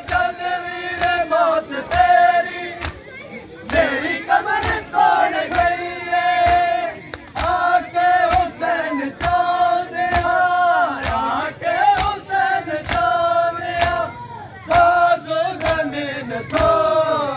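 Men chanting a Muharram mourning lament (noha) in long held notes, with a crowd beating their chests (matam) in unison to its beat, about two slaps a second.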